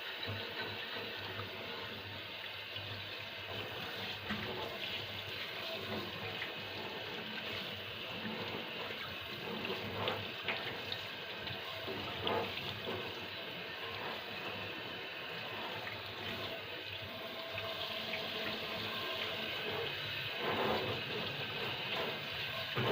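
Water running steadily from a tap into a sink, with a few light knocks and clinks now and then.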